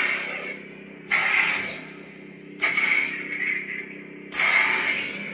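Neopixel lightsaber running a Crystal Focus 10 soundboard with the "Puppetmaster" soundfont: a steady low hum with three swing swooshes about a second and a half apart, each starting suddenly and fading away.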